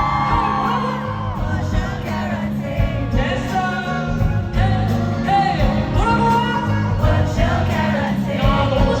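A pop song playing: a singing voice over a steady pulsing bass beat, with a few whoops.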